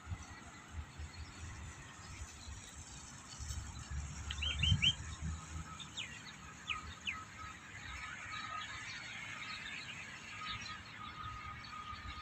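Birds chirping outdoors: a quick run of four chirps about four seconds in and a few more shortly after, over steady outdoor background noise, with a brief low rumble around the first chirps.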